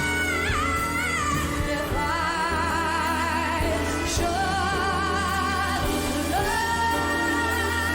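A woman's solo voice singing a pop ballad medley live over band accompaniment. She holds several long notes with vibrato, moving to a new sustained note about every two seconds.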